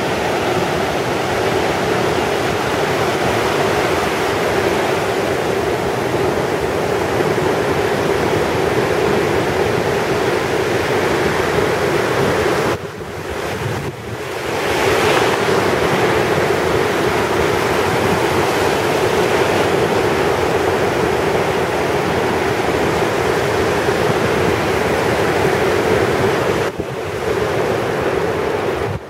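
Gulf of Mexico surf washing in over a sandy beach, with wind buffeting the microphone. The rushing noise dips briefly twice, about halfway through and near the end.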